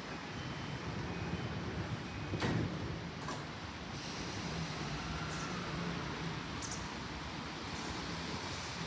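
Steady running rumble of an electric commuter train, with two sharp knocks about a second apart a couple of seconds in.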